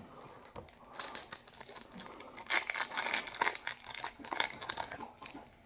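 Foil wrapper of a Yu-Gi-Oh! booster pack crackling as it is torn open and handled, from about a second in until near the end.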